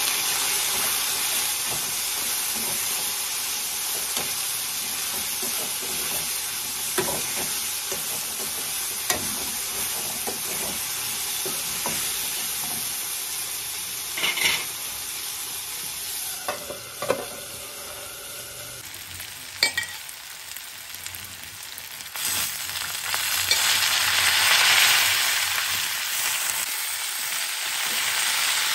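Food frying with a steady sizzle in a wok, a metal ladle stirring and now and then knocking and scraping against the pan. The sizzle swells louder about two-thirds of the way through.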